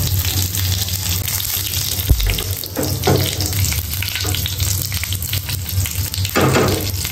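A spice tempering of mustard seeds, fenugreek and dried red chillies frying in hot coconut oil in a pan, with a steady sizzle full of small crackles and pops.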